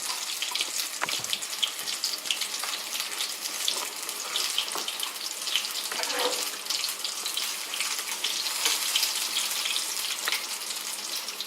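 Vegetable pakoras in gram-flour batter sizzling as they deep-fry in very hot canola oil, a steady hiss dotted with small crackles.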